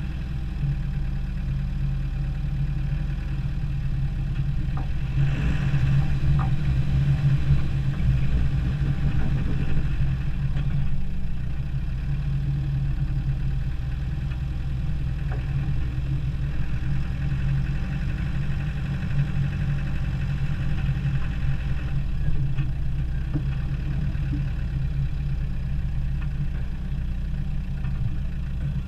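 Land Rover Defender 90's engine running at low revs as it crawls over a snowy trail. It swells a little louder about five seconds in, then settles back to a steady drone.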